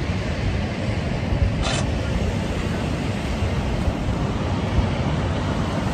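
Wind buffeting a phone's microphone: a steady, uneven low rumble, with one short hiss a little under two seconds in.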